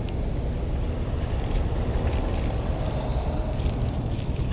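Steady low outdoor rumble, with faint light clicks and rattles now and then.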